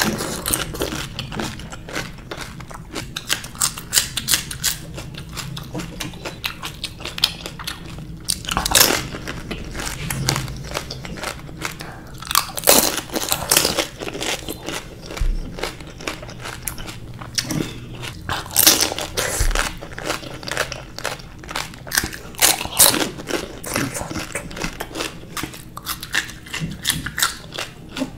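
A person biting into and chewing pani puri, the crisp fried puri shells crunching and cracking between the teeth, with several louder crunches spaced throughout.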